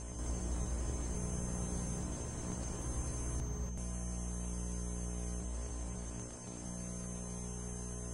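Steady low droning hum made of many evenly spaced overtones, with a thin high steady whine above it and a faint hiss. It holds without a beat, dipping slightly about six seconds in.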